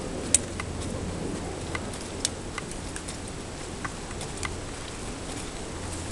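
Steady low background hum and noise, with about half a dozen scattered sharp clicks, the loudest about a third of a second in.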